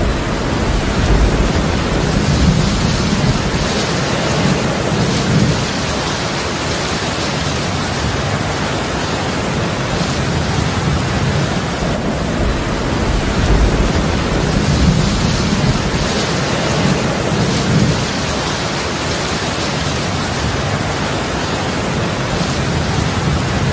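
Heavy rain falling steadily, with low rumbles of thunder swelling a couple of seconds in and again about halfway through.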